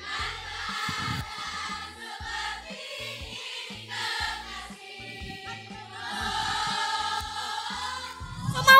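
Background music with choir-like singing over a pulsing bass line. Near the end a loud sound slides down in pitch.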